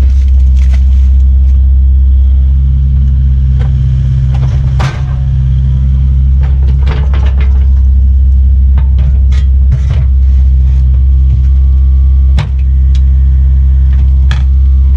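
Kubota U55-4 mini excavator's diesel engine running steadily under work, with scattered sharp knocks and clanks through it.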